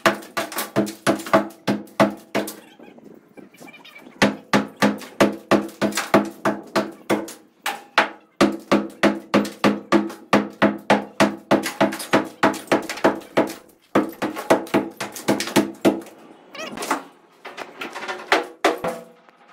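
Rapid hammer blows on a plastered brick wall, about three to four strikes a second, each with a short ringing tail. The blows come in runs with brief pauses between them.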